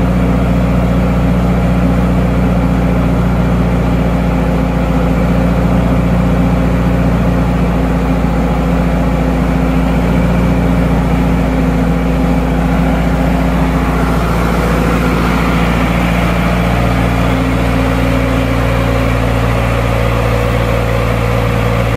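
John Deere diesel engine of a 40 kW Broadcrown open generator set running steadily at about 1,730 rpm with no electrical load on the alternator.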